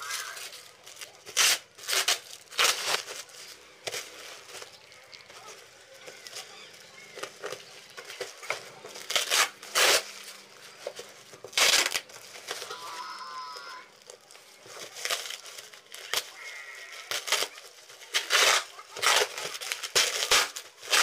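White plastic packaging crinkling and tearing as it is pulled and gathered by hand, in loud, irregular rustles.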